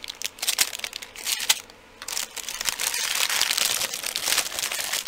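Clear plastic packaging bags crinkling as they are handled: short scattered crackles for about two seconds, then a dense, continuous crinkle.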